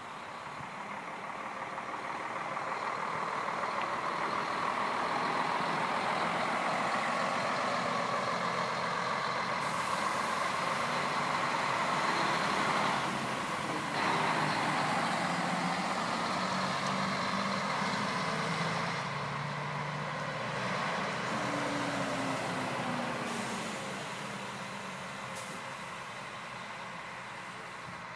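Two Setra tour coaches driving past one after the other, their diesel engines and tyres swelling as they approach, staying loud through the middle, then fading away. A short dip about halfway through, and the engine note sliding in pitch in the later part as they pull away.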